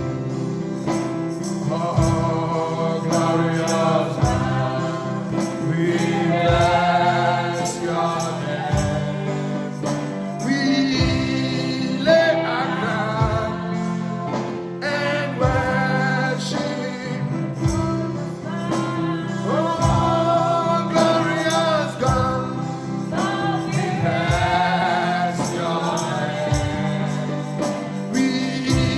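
Gospel worship music: voices singing over a band, with a steady drum beat.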